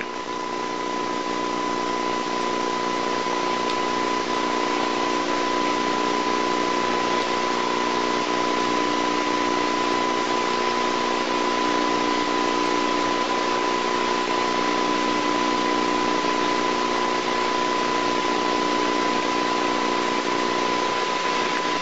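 Steady hiss of an old videotape soundtrack with a steady high whine and a low hum underneath, unchanging throughout; no other sound comes through.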